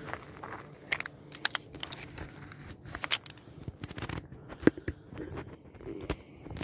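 Footsteps on a dirt shore path littered with dry grass and twigs: irregular crunches and sharp clicks, the loudest a little under five seconds in.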